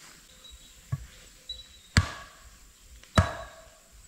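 Hard blows of a tool striking wood: a light knock about a second in, then two loud blows about a second apart, each with a short woody ring.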